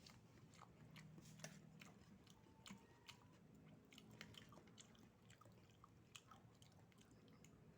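Faint chewing, with scattered small wet clicks, of someone eating oysters.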